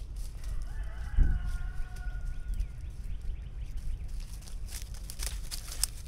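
A rooster crowing once, a drawn-out call lasting about two seconds that starts about half a second in, over a low wind rumble on the microphone, with a sharp thump a little over a second in. Near the end, twigs crackle and dry leaves rustle as a dog walks through the brush.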